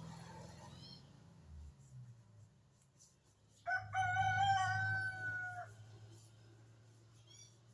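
A rooster crowing once: one long call of about two seconds that starts abruptly and holds nearly steady in pitch. A few faint, short, high chirps come before and after it.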